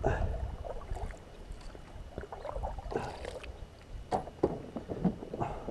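Scattered light knocks and water sounds around a pedal kayak, with a low rumble of wind on the microphone that fades after about a second.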